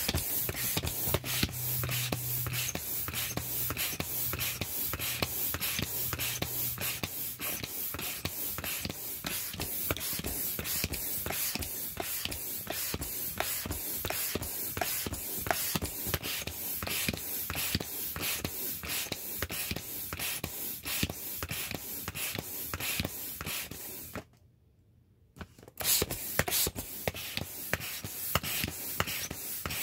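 Air pump inflating a vinyl inflatable rooster: rapid rhythmic strokes of rushing air, about three a second, with a short pause near the end before the pumping resumes.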